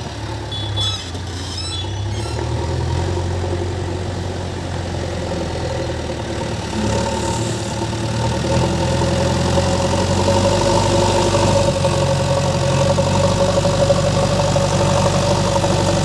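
JCB 3DX backhoe loader's diesel engine running steadily, growing louder about halfway through. A few light, high clicks sound about a second in.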